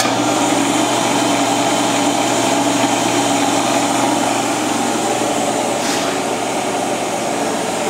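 CNC mill-drill running steadily, its solid carbide end mill cutting a shallow groove in a quarter-inch aluminium plate.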